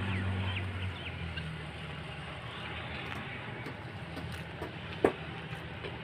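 Outdoor ambience: a low hum that fades out about a second in, a few short bird calls, and one sharp loud sound about five seconds in.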